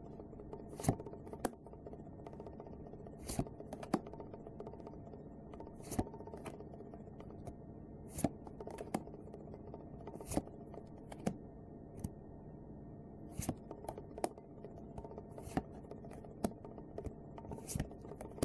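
Trading cards from a Kaijudo booster pack being handled and flipped through, one sharp card snap or tap every second or two, over faint background music.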